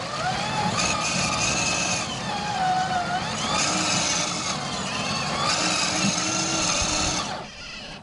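RC4WD Trail Finder 2 scale crawler's electric motor and gearbox whining as it climbs, the pitch rising and falling with the throttle, with its tyres scrabbling on wet mud and rock. The whine cuts out about seven seconds in.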